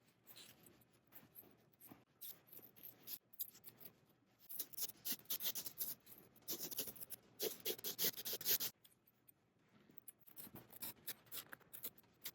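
Scissors snipping through thin upholstery foam in a run of short, quick cuts. The cuts are sparse at first, come thick and fast through the middle, then thin out near the end.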